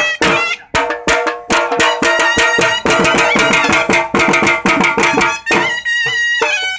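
Folk music played live on two dhol drums and a shawm (surnai): the double-headed dhols beat a fast, driving rhythm with sticks while the shawm plays a loud, wavering reedy melody. The drumming breaks off briefly about half a second in and again near the end, with the shawm carrying on over the gaps.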